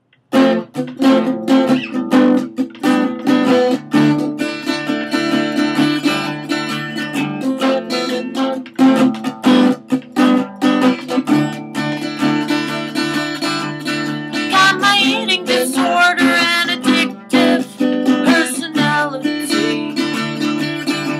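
Instrumental intro of a song: acoustic guitar strummed in a steady rhythm, with a wavering melody line coming in over it about fifteen seconds in.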